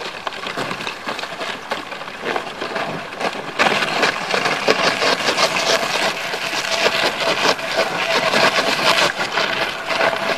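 Thin lake ice breaking up against the hull of a G3 aluminum boat, a dense crackling and crunching of shattering, scraping ice, with an outboard motor running underneath. It grows louder about three and a half seconds in.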